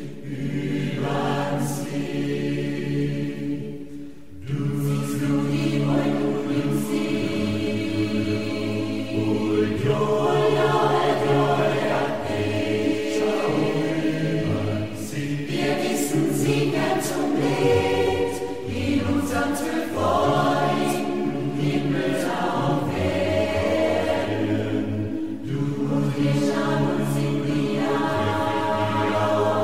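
Mixed choir of men's and women's voices singing a song, with a brief pause between phrases about four seconds in.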